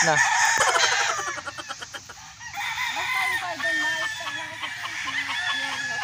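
Chickens calling: clucking in the first couple of seconds, then several gamecock roosters crowing at once, their long calls overlapping at different pitches.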